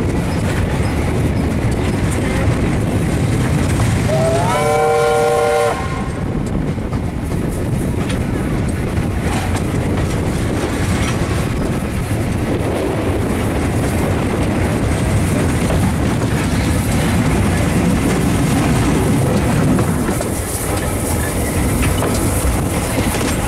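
Ww class steam locomotive No. 644 hauling a train, heard from the open balcony of a carriage behind it: a steady rumble of the train running, with wind and rain noise. About four seconds in, the locomotive's steam whistle blows once for about a second and a half, a chord of several notes that slides up in pitch as it opens, then holds.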